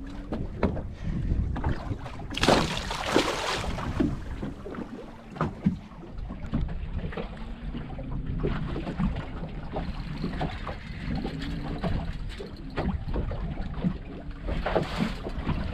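Wind on the microphone and water moving around a small fishing boat, with scattered knocks and clicks from handling gear aboard. A louder rushing burst comes about two and a half seconds in, and a shorter one near the end.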